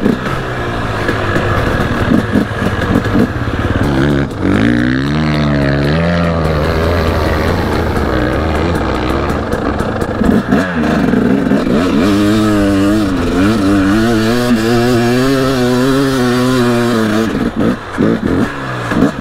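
KTM off-road motorcycle engine revving hard under load on a steep sand climb, its pitch rising and falling repeatedly with the throttle.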